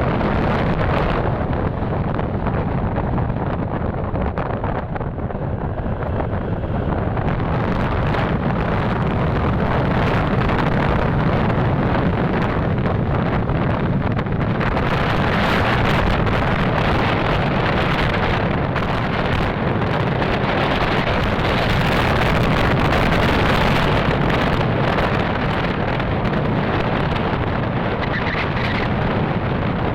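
Wind rushing over the microphone of a moving motorcycle, with the low rumble of its engine and road noise underneath. The rush gets louder and hissier about halfway through.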